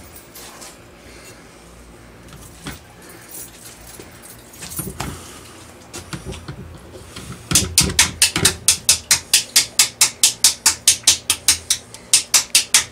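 Metal pliers rapping on a PVC pipe to knock activated carbon loose into a bucket: a few scattered knocks, then from about seven and a half seconds in a fast, even run of sharp taps, about four to five a second.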